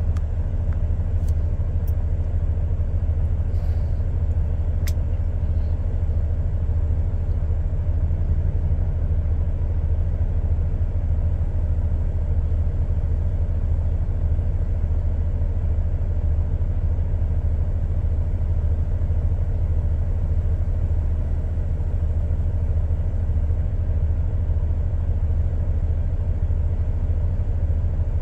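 Engine of a stationary truck idling, heard from inside the cab as a steady low rumble. A few faint ticks come in the first five seconds.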